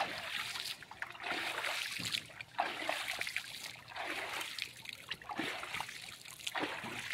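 River water splashing as a child scoops it up with both hands and flings it back into the shallows, a splash about every second.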